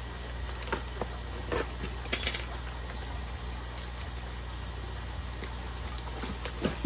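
Cardboard shipping box being handled and opened: scattered light knocks and rustles, with a brief, louder, high-pitched clinking scrape about two seconds in.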